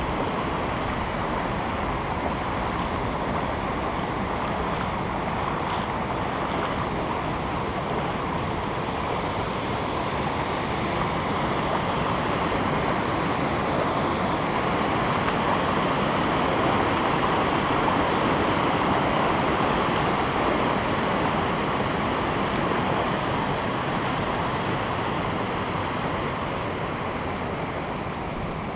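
Shallow river water rushing steadily over a low concrete weir and around rocks, close to the microphone, growing a little louder midway.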